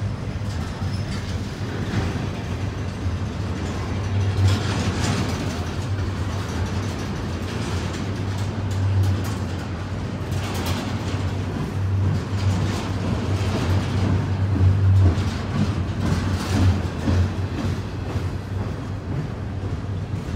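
Double-stack intermodal container cars of a Norfolk Southern freight train rolling past close by: a steady rumble of steel wheels on rail, with intermittent clanks and rattles from the cars.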